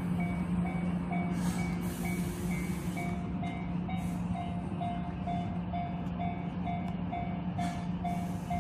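Japanese railway level-crossing alarm ringing, a repeated electronic ding about twice a second, over a steady low hum.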